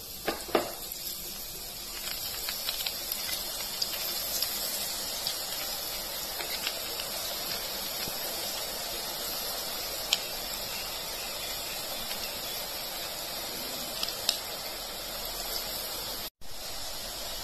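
Hot oil sizzling steadily as drops of gram-flour (besan) batter, pressed through a perforated ladle, fry into boondi, with scattered light clicks. The sound cuts out for an instant near the end.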